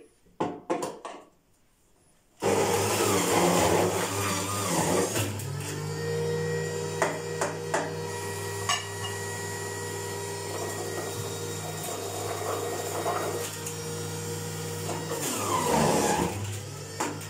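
Electric centrifugal juicer shredding carrots: a few plastic clicks of the pusher, then the motor starts suddenly about two and a half seconds in and runs with a steady hum. Rougher grinding comes in just after it starts and again near the end as carrot pieces are pushed down the feed chute.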